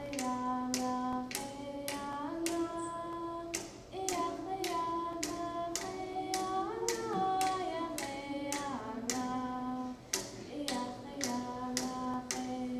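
Yupik dance song: voices singing long held notes that slide between pitches, over an even drum beat of about two strikes a second.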